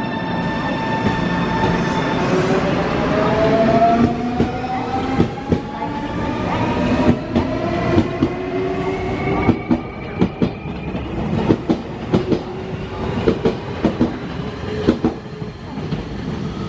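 Nankai 8300 series electric train pulling away from the platform: its inverter whine rises in pitch in several stacked tones as it accelerates. Wheels clatter over rail joints as the cars pass, the clicks coming thicker in the second half.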